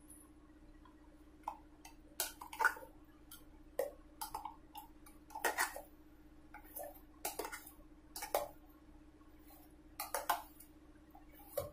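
A spoon scraping and knocking against a mixer jar and bowl as thick urad dal batter is scooped out: a dozen or so irregular clinks and scrapes over a faint steady hum.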